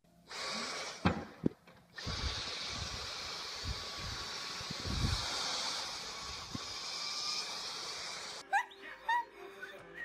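Vacuum cleaner running with a steady hiss while its floor nozzle is drawn over a dog's back, with two sharp knocks about a second in. Near the end it gives way to a few short high-pitched tones that slide up and down.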